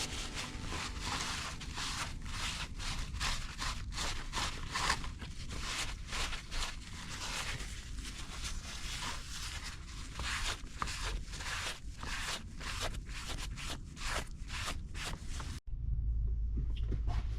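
Repeated hand scraping strokes, about two to three a second and steady in rhythm. Near the end they stop at an abrupt cut to a low steady hum.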